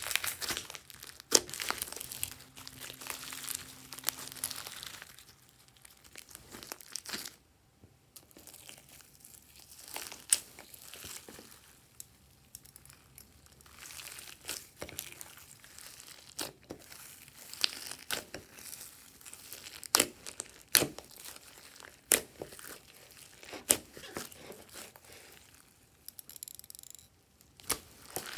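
Glossy slime being squeezed, stretched and folded by hand: a sticky, crinkly crackle broken by many sharp pops, with a couple of short pauses.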